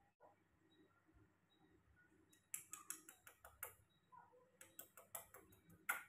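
A person making kissing clicks with the lips at a baby monkey: a quick run of short sharp clicks from about two and a half seconds in, then another run with the strongest click near the end.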